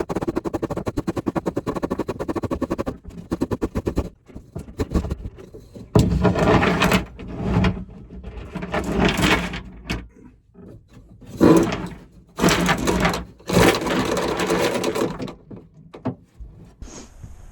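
Anchor rode being fed down through the deck hole into the chain locker: a fast rattle for the first three or four seconds, then a series of scraping rushes, each a second or two long.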